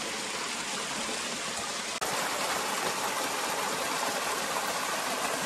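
Spring water running down a narrow rock channel, a steady rushing that gets a little louder about two seconds in.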